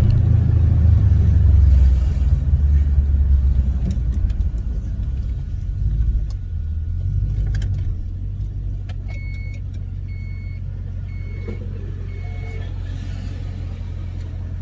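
2013 Dodge Durango R/T's 5.7 L Hemi V8 with long-tube headers, an X-pipe and Pro XS mufflers, heard through the open rear hatch while driving: a loud low rumble that eases off over the first several seconds and settles into a steady low drone. Four short beeps about a second apart sound a little after halfway.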